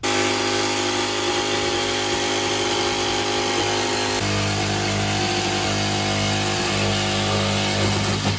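Corded handheld power tool running steadily as it trims the edge of a cat-door opening in a camper wall that was cut a little too small. Its tone changes about four seconds in, and it stops just before the end.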